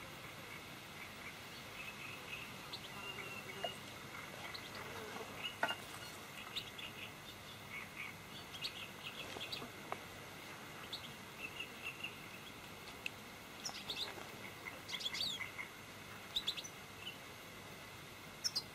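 Small birds chirping and calling among the reeds: short, scattered high chirps and quick trills, busiest around the middle and again about two-thirds through, over a faint steady high hiss.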